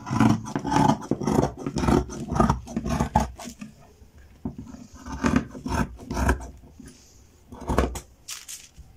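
Fabric scissors cutting through folded herringbone cloth around a paper pattern, an irregular run of snips with short pauses.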